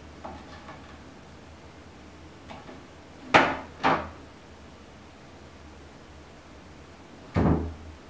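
A cat's paws and body knocking against a wooden door-mounted cat climber: two sharp knocks close together about a third of the way in, and a heavier thump near the end as it jumps up onto a shelf.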